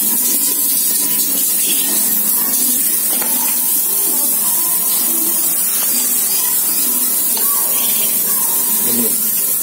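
Hand-pumped pressure sprayer spraying soapy water onto a bicycle, with a steady hiss from the nozzle. The sprayer is modified to make snow foam: its nozzle is plugged with a cigarette filter and its hose is pierced with a pinhole.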